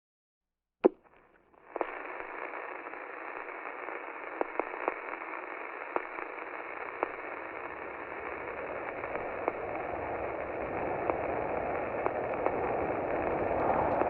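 Old-time radio static: a single click about a second in, then a steady, thin hiss with scattered crackles and pops, slowly growing fuller toward the end. It is edited in to imitate a vintage radio broadcast.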